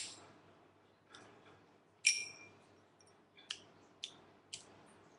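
Zippo lighter clicking through a trick: a sharp metallic clink at the start, another ringing clink about two seconds in, then three lighter clicks about half a second apart.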